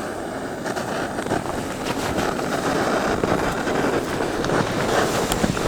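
Handheld gas torch blowing a steady hissing flame to light campfire kindling, growing slowly louder.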